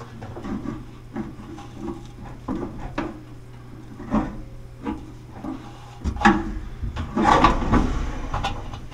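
Hands working inside a clothes dryer's cabinet: irregular knocks, rubs and scrapes of the drum, drive belt and sheet-metal panels as the drum is lifted to ease the belt tension. The handling gets busier and louder about six seconds in, with a run of scraping and clunking.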